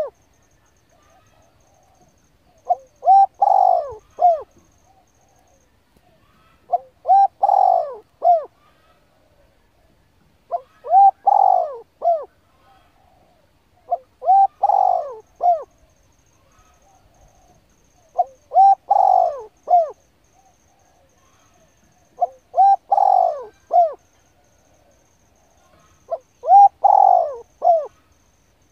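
A dove cooing: a three-part phrase (short note, a longer swelling note, a short closing note) repeated about every four seconds, seven times.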